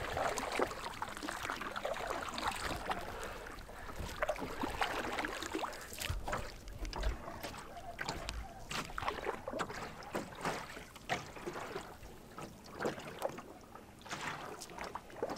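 A canoe being paddled across lake water: irregular paddle strokes dipping and splashing, with dripping and water sloshing against the hull.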